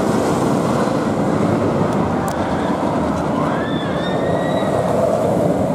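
Steel shuttle-loop roller coaster train rumbling along its track, a steady loud rolling noise.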